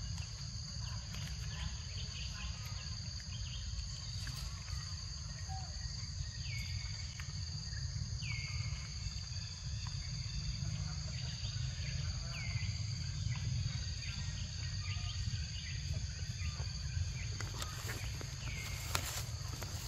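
Steady drone of forest insects, with a low rumble underneath and four short downward-sweeping calls spread through it. Near the end, footsteps and rustling through leafy ground cover.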